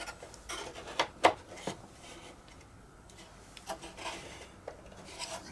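A model aircraft's former and plastic moulding being pushed and worked into place by hand: light rubbing and scraping with a few sharp clicks and knocks, two of them close together about a second in.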